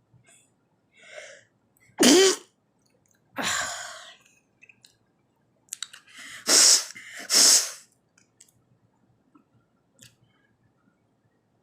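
A woman sneezing several times: a short breath in, a loud voiced sneeze about two seconds in, a weaker one shortly after, then two loud sneezes about a second apart past the middle.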